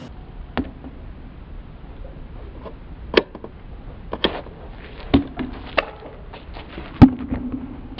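Small rubber ball in a handball rally, slapped by hand and bouncing off concrete and a wall: about six sharp smacks roughly a second apart, the loudest about seven seconds in.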